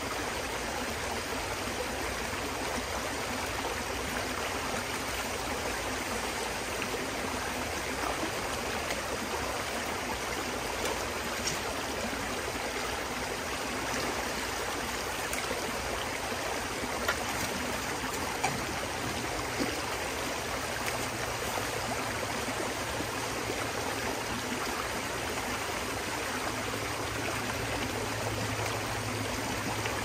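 Shallow creek water rushing steadily over rocks and through a sluice box, with a few sharp clicks from a shovel digging gravel in the streambed.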